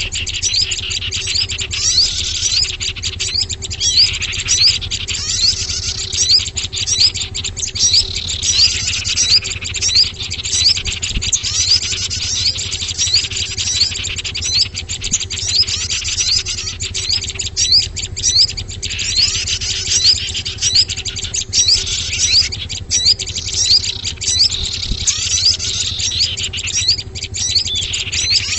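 Bird-lure (pikat) recording of many small songbirds chirping and twittering densely without pause, with falling, sweeping calls every few seconds, over a steady low hum. It is played to draw small birds in for trapping.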